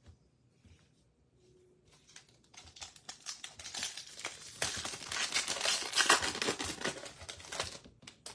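A trading card pack's plastic wrapper being torn open and crinkled by hand. It starts with a few faint ticks, then a long run of crackling starts about two seconds in, is loudest past the middle and stops just before the end.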